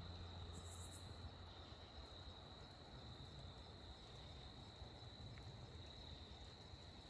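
Faint, steady insect chorus of crickets, one unbroken high-pitched trill, over a faint low rumble.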